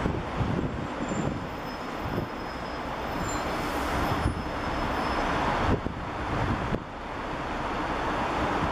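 Wind rushing over the camera's built-in microphone: a steady noisy hiss with an uneven low rumble that swells and dips.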